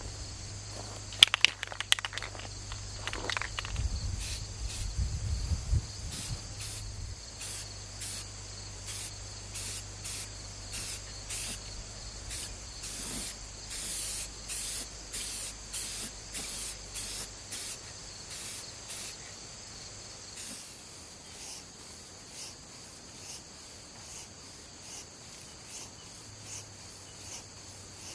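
Insects chirping in a steady, even rhythm of high pulses, about one and a half a second. A few sharp clicks come about a second in, and a low rumble follows a few seconds later.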